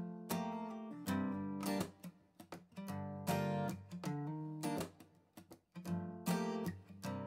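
Instrumental background music of strummed acoustic guitar chords, each chord struck sharply and ringing out before the next, about once a second.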